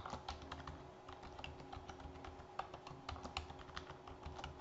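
Faint computer keyboard typing: a quick, irregular run of key clicks as a password is entered and then typed again to confirm it.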